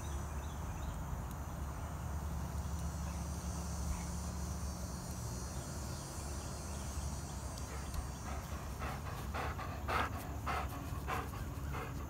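Dog panting with quick, even breaths, about three a second, loudest in the last few seconds, over a steady low rumble.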